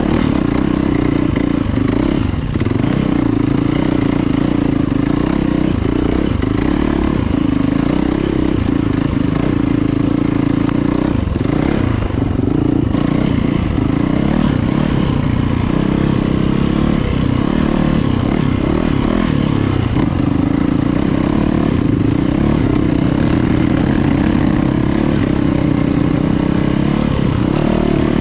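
Yamaha YZ450FX dirt bike's single-cylinder four-stroke engine running steadily as the bike rides along a trail, heard close from on board.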